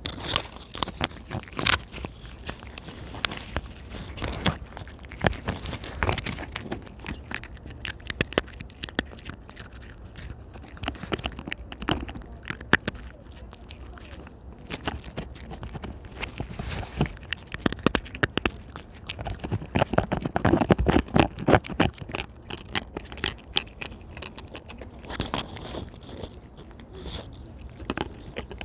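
Close-up, wet eating sounds of a soft ripe persimmon being bitten and chewed: irregular smacks and clicks, busiest about two-thirds of the way through.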